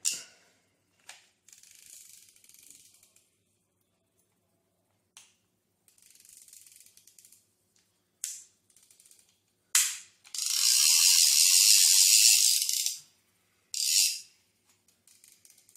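Okuma CLX 450 baitcasting reel being worked by hand: its ratchet clicks in runs of fine, fast clicking. The loudest run lasts about two and a half seconds, past the middle, and single sharp clicks come between the runs.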